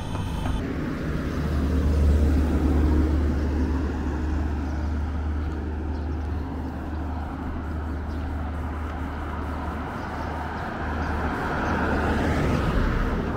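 Road traffic: a vehicle engine rumbles low, and near the end a vehicle passes close, swelling and rising in pitch. Before it, for about half a second, a steady machine hum.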